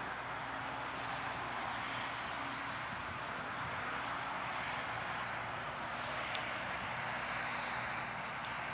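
Steady outdoor rushing noise, with a small bird chirping in two quick runs of short high notes, about a second and a half in and again about five seconds in.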